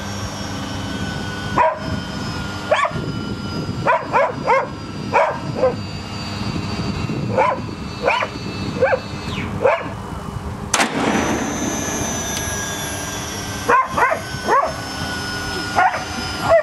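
A dog barking in short, sharp yelps, singly or two and three at a time, over and over. About eleven seconds in there is one sharp click with a brief rush of noise.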